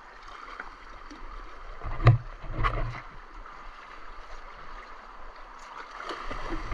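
Shallow river water running over rocks, with sloshing and splashing from wading through it. A sharp knock about two seconds in, then a smaller one.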